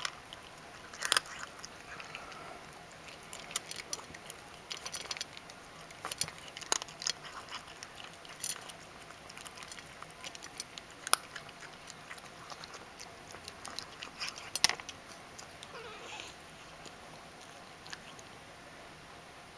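Ragdoll cat crunching dry kibble from a stainless steel bowl: irregular crisp crunches and clicks, which die away for the last few seconds.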